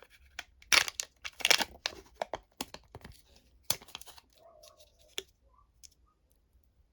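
Candy wrapper being torn open and crinkled by hand: sharp rustling bursts, loudest in the first two seconds, thinning to a few faint clicks after about five seconds.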